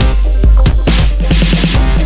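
Loud electronic background music with a heavy bass and a steady beat.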